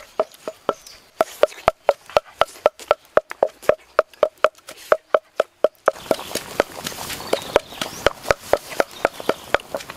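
Even, rhythmic clicking, about four clicks a second, each with a short hollow knock like a woodblock or hoofbeat. About six seconds in, a steady hiss joins the clicks.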